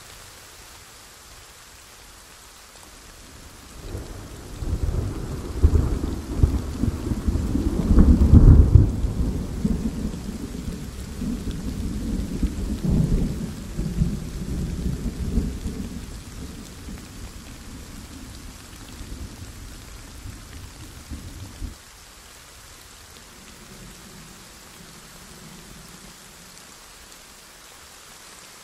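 Steady heavy rain with a long roll of thunder. The thunder comes in about four seconds in, is loudest a few seconds later, and rumbles on in swells for over fifteen seconds, fading before it cuts off suddenly.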